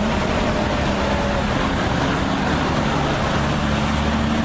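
German police Sonderwagen 4 armored vehicle on the move, its engine running steadily with a low hum and road noise.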